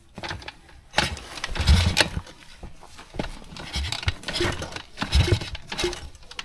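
A Kayo pit bike's YX160 four-stroke single being kicked over on the kickstarter with the spark plug out and a compression gauge screwed in, for a compression test: about five kick strokes, each a short burst of mechanical sound, roughly a second apart.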